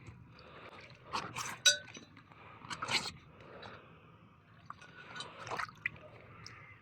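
Water splashing and dripping as an inner tube is worked through a bowl of water to find a puncture, with clinks against the ceramic slow cooker pot, one ringing clink about a second and a half in.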